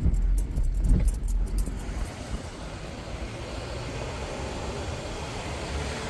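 Honda Civic four-cylinder engine running while the car moves slowly, with a knocking from a failing connecting-rod bearing (rod knock). It has a strong low rumble for about the first two seconds, then runs quieter and more evenly.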